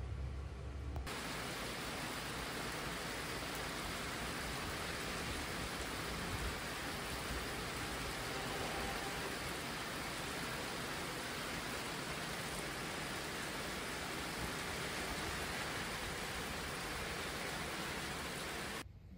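Heavy rain falling steadily on open ground. It starts about a second in and cuts off just before the end.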